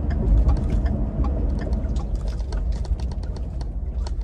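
Pickup truck driving, heard from inside the cab: a steady low rumble of engine and road, with small rattles and clicks scattered through it.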